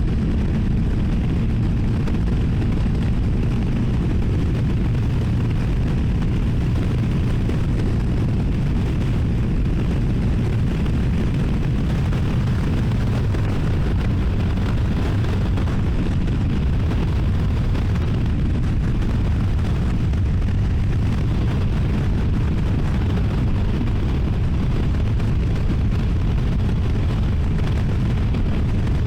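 CFMoto 300NK motorcycle riding at steady speed: its single-cylinder engine on the stock exhaust running under heavy, constant wind rumble on the helmet-mounted microphone.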